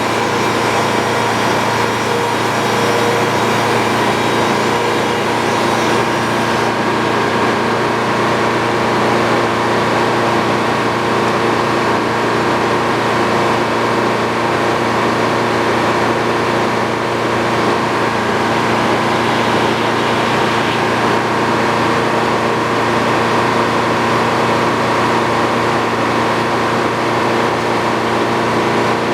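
Sawmill running steadily as it saws a beam into boards, an engine-driven machine sound that holds the same pitch and level without a break.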